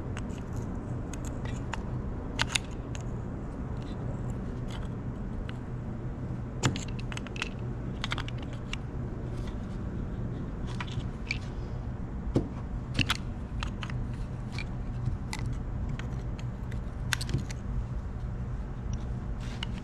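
Irregular metallic clicks and clinks of a hand tool working the carburetor mounting bolts loose on a Tecumseh lawn mower engine, over a steady low hum.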